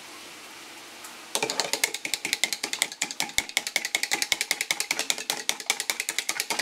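Eggs being whisked by hand in a plastic cup: a quick, rhythmic clicking of the utensil against the cup's sides, several strokes a second, starting about a second and a half in.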